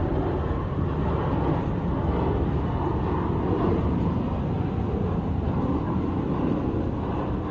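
Steady low rumble of a Boeing 737 jet airliner's engines as it flies past low on final approach to land.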